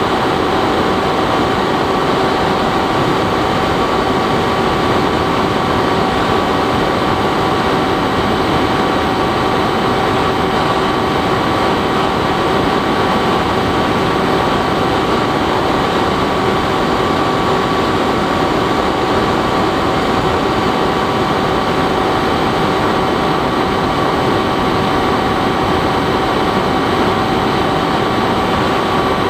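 Bixler 3 foam RC plane's electric motor and pusher propeller running steadily in flight: a constant whine of several steady tones over a rushing wind noise.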